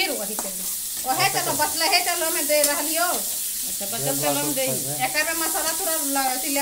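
Sliced onions sizzling as they fry in oil in a steel kadhai, stirred and scraped with a flat spatula. Over the frying, a voice without clear words rises and falls in long, wavering notes.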